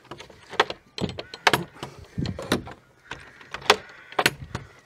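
Metal gate hardware on a timber gate being worked by hand: a galvanised barrel bolt and a ring-handle latch, giving a series of about eight sharp metallic clicks and clacks.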